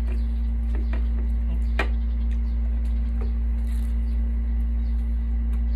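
A few soft clicks and squishes of people eating rice and grilled food with their hands, over a steady low hum.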